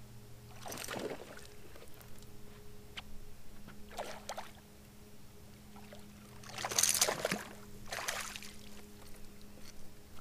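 Hooked largemouth-size bass splashing at the water's surface in several short bursts while being reeled to the boat, the loudest splash about seven seconds in, over a steady low hum.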